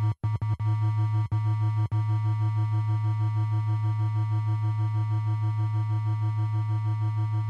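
Music: a low, sustained synthesizer drone with an even pulsing, broken by a few short cuts in its first two seconds before it holds steady.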